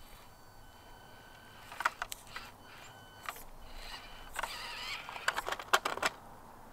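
Axial SCX24 micro RC crawler working over a rock: scattered small plastic clicks and tyre scrabbling with a faint high motor whine, then a quick run of sharp plastic knocks and clatter near the end as the truck tips off the rock edge and lands.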